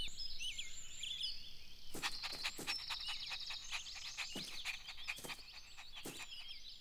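Quiet outdoor ambience of small birds chirping, with a fast high trill about two to three seconds in and scattered short clicks throughout.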